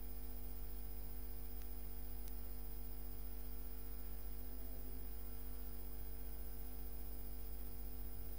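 Steady electrical hum, several even tones held without change over a faint hiss.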